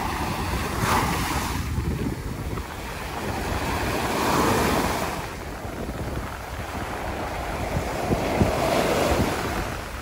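Small sea waves breaking and washing up a sandy beach, the surf swelling three times, with wind rumbling on the microphone.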